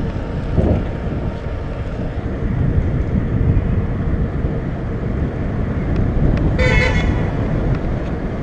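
Wind rushing and buffeting over the microphone of a camera on a moving bicycle, a steady low rumble. About six and a half seconds in, a horn gives one short toot.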